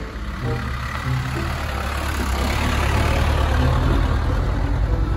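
Loaded dump truck's diesel engine running as the truck drives along a dirt road: a steady low rumble that grows a little louder through the middle.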